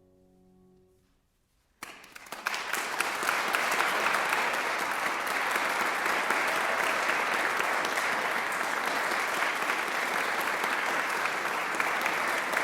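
The last piano chord fades away, a moment of silence follows, then audience applause breaks out about two seconds in and continues steadily.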